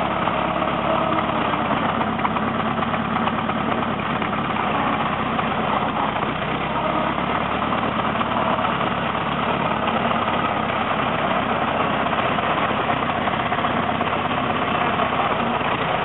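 Antique Fageol truck's engine running steadily at low revs while the bare chassis is driven slowly.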